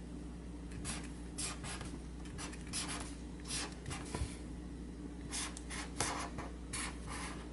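Pen writing on a sheet of paper: a series of short scratching strokes, one for each line of a handwritten Korean character.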